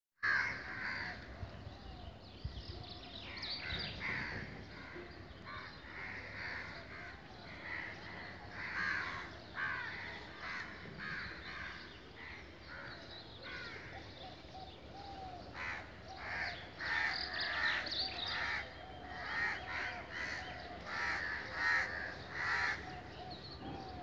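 A group of crows cawing again and again, many short calls following each other, busier in the second half.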